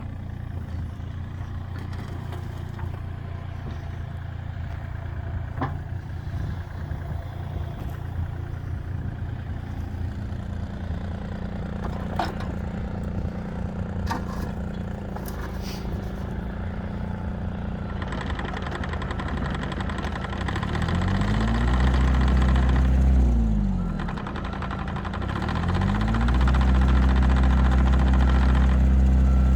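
Komatsu PC30MR-3 mini excavator's diesel engine running at a steady idle. Later a higher whine joins it, and near the end the engine twice revs up and holds for a few seconds before dropping back, as the machine is worked.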